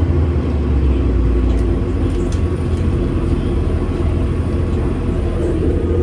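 Orion VII Next Generation transit bus running steadily, a loud low drone with a steady hum above it and a few faint ticks.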